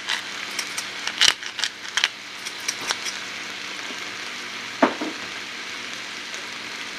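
Parboiled potato chunks sizzling in olive oil and butter in a pan on the stove, a steady frying hiss. A run of sharp clicks and pops comes over the first three seconds, and a single knock about five seconds in.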